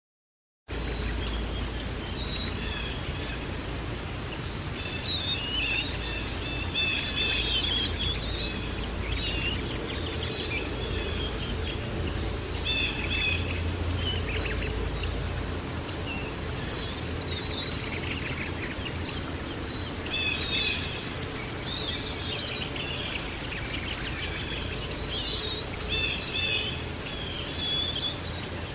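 Songbirds chirping and trilling over a steady low background rush, starting abruptly out of silence near the start.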